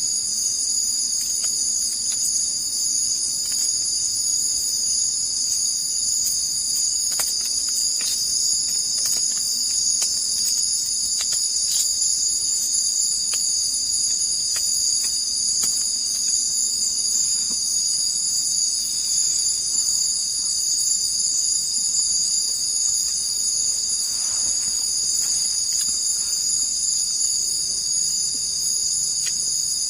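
Steady chorus of insects such as crickets, a continuous high-pitched drone in several layered pitches with no pauses, with a few faint clicks.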